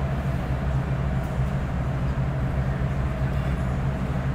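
Steady low mechanical hum of a kitchen's background machinery, even throughout, with no distinct clinks or knocks.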